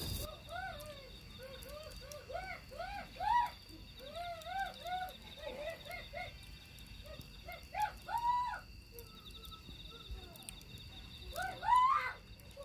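A chorus of animal calls: many short arching notes, each rising and falling in pitch, overlapping throughout, over a steady high whine, with one louder rising call near the end.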